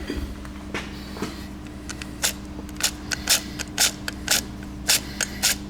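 Clutch release bearing and release fork moved by hand, giving a run of sharp, irregular metallic clicks from about two seconds in. The mechanic takes the clicking for play at the fork's pivot pin.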